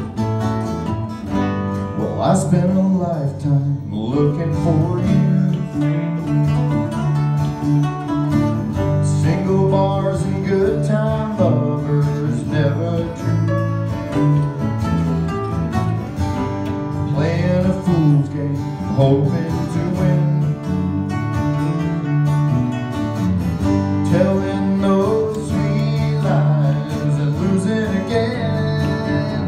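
Small live band playing a song's instrumental introduction: acoustic guitars with electric bass underneath, and a guitar playing melodic lines over the strumming.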